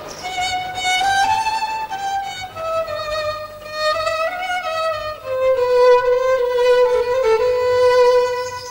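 A solo violin plays a slow melody, one note at a time, stepping downward. It settles about halfway through on a long, low note that is held and slightly louder for the last three seconds.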